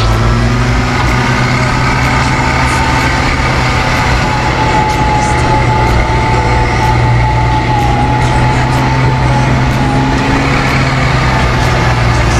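Engines running steadily with a low drone and a steady whine while a Warn Zeon 12-S winch hauls a stuck dump truck loaded with stones.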